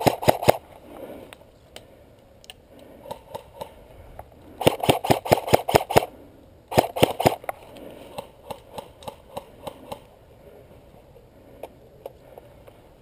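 Airsoft rifle firing short bursts of rapid automatic fire: one right at the start, then two more about four and a half and seven seconds in. Fainter scattered clicks follow for a couple of seconds after that.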